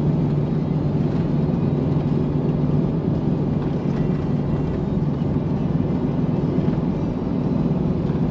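Steady drone of a vehicle driving at highway speed, heard from inside the cabin: engine hum mixed with tyre and road noise.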